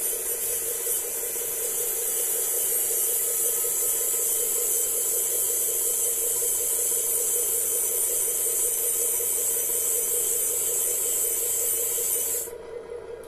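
Steady hiss, like escaping air, that cuts off abruptly near the end, over a constant low hum, as the Tamiya RC tow truck's rear outrigger legs move on their actuators.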